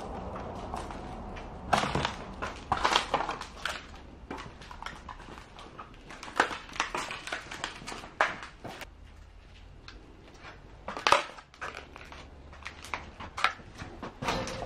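Footsteps crunching over debris on a littered floor: irregular crunches and scrapes that begin about two seconds in and continue unevenly.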